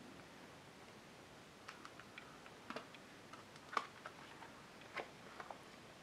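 A picture book's page being turned by hand: a scatter of soft paper clicks and crinkles over a few seconds, the sharpest a little past the middle.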